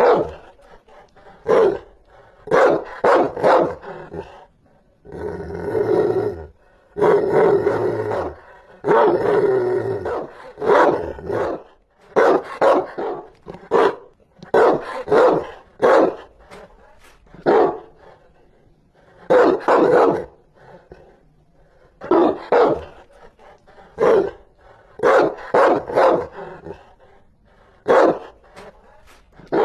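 Rottweiler barking fiercely in repeated volleys of two to four barks, with some longer, drawn-out barks in the first ten seconds.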